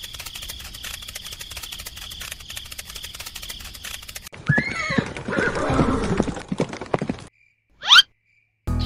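Horse sound effects: a rapid, even clip-clop of hooves for about four seconds, then a horse whinnying. A short whoosh follows near the end.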